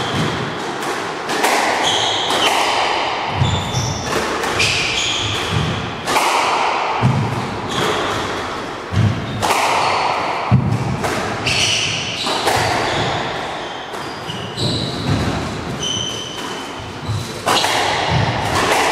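Squash rally: the ball is struck by racquets and smacks the court walls again and again, each hit echoing briefly in the enclosed court, with short high squeaks from the players' shoes on the wooden floor.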